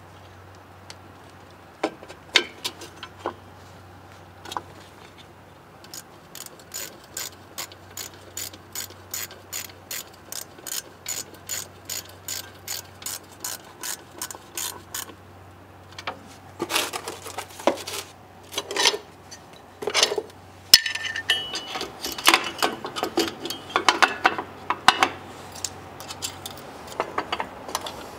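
Hand socket ratchet clicking in a steady run, about three clicks a second, as a fastener is turned. This gives way to irregular clicks, metal clinks and knocks of tools against parts, with a brief metallic ring partway through.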